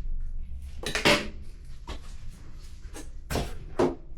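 Vacuum-seal bag plastic being handled and cut to length off the roll: a handful of short crinkles and clacks, the loudest about a second in.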